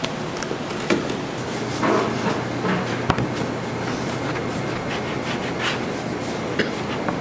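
Food-stall working noise: a steady low hum under a noisy background, with scattered knocks and clicks, the sharpest about three seconds in.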